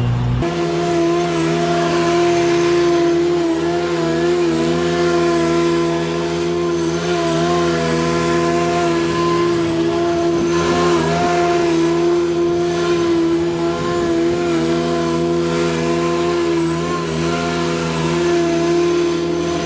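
Zero-turn lawn mower engine running at a steady cutting speed, its pitch dipping slightly now and then as it works. A deeper hum drops out just after the start.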